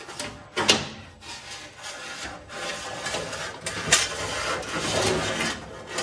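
A stiff wire-pulling line being pushed by hand through a hole in a VW Bug's sheet-metal body, scraping and rubbing against the steel as it goes, with two sharp clicks, one near the start and one a little past halfway.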